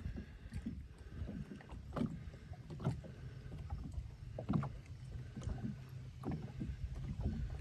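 Fishing boat sitting on the water: a steady low rumble with light knocks against the hull every second or so.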